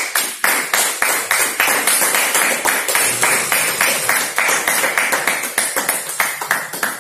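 Hands clapping in a quick, fairly even run, about five or six claps a second.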